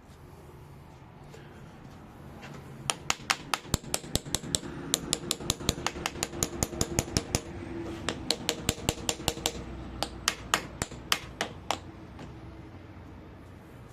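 Rapid sharp metal clicks and taps from a hand tool working at the seized cover of an ATV brake master cylinder, trying to free it. They come about five a second in runs with short pauses, starting about three seconds in and stopping near the end.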